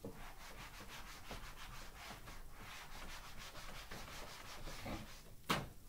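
Felt eraser rubbing back and forth across a dry-erase whiteboard, a quick rhythmic swishing of several strokes a second. A brief louder rush of noise comes near the end.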